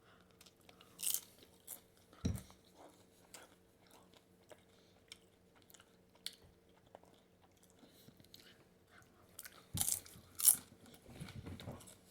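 Crunchy food being bitten and chewed close to the microphone: scattered crackly crunches, with loud bites about a second in, around two seconds, and twice near the end.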